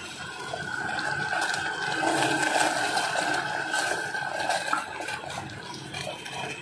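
Water at a rolling boil in a stainless steel saucepan: a steady bubbling rush, loudest about halfway through.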